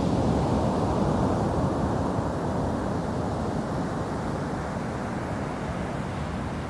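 Ocean waves breaking and washing up over a black sand beach: a steady rush of surf that eases off a little after the first couple of seconds.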